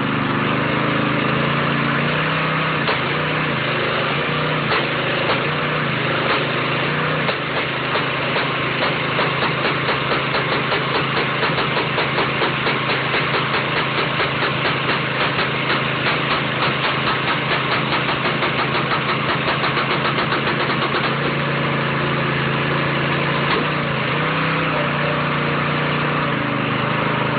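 Small engine of a homemade log splitter running steadily; through the middle stretch its sound turns into a rapid, even pulsing, then settles back to a steady hum near the end.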